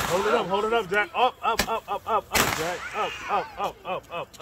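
Ground firework burning on the pavement, giving off a rapid run of short whistling chirps, several a second, each rising and falling in pitch. Two sharp bangs break in partway through.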